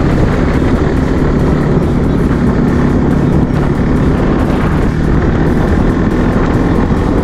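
Bajaj Pulsar NS200's single-cylinder engine running at a steady cruising speed, its pitch holding level, under heavy wind noise on the microphone.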